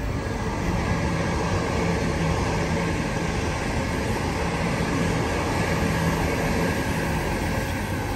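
Double-deck electric suburban train running past on the adjacent track: a steady loud rumble of wheels on rail with a low steady hum.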